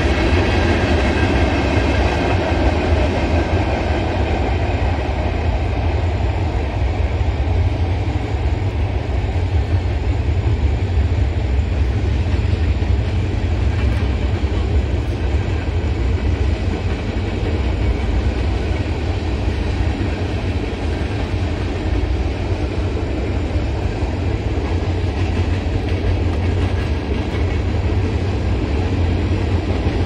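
Freight train cars rolling past: a steady rumble of steel wheels on rail, a little louder in the first few seconds.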